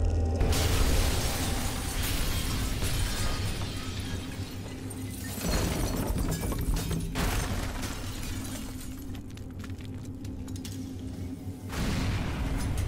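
A car bomb going off: a loud blast with glass shattering, over dramatic film music. Further crashes follow about five and a half seconds in and again near the end.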